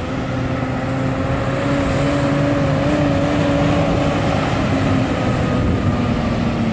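Semi truck's air horn sounding one long, continuous blast over the rumble of road noise. Its pitch dips as the blast begins, then sags slowly lower.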